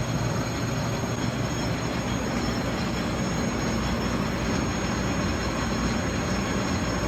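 Metal lathe running steadily: a constant mechanical drone with a thin high-pitched whine over it.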